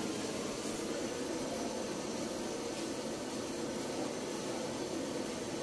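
Handheld gas torch flame hissing steadily as it heats a motorcycle exhaust header to turn the metal blue.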